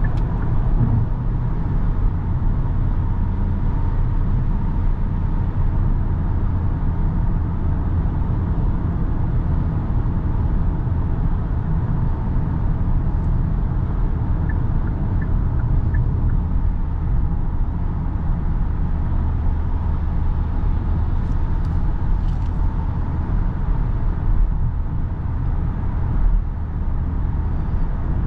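Steady interior drone of a Kia Sorento 1.6 T-GDI turbo petrol hybrid cruising at highway speed: a low four-cylinder engine hum under tyre and road noise, with no change in pace.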